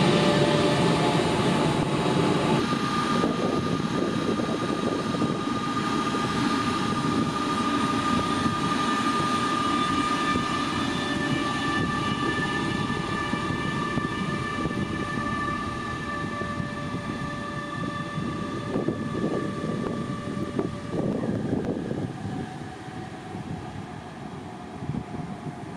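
DB class 146 electric locomotive hauling a double-deck regional express: a steady high electrical whine over the rumble of wheels on rail, fading as the train moves away. The whine drops out near the end.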